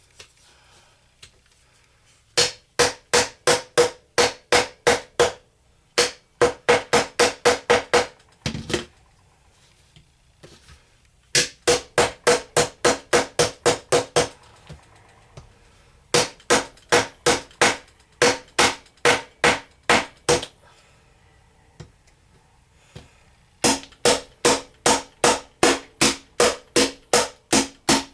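Hammer tapping a chisel into a hard treasure-dig block, in five runs of quick, evenly spaced strikes (about three to five a second), each strike ringing with a clear metallic tone, with short pauses between runs.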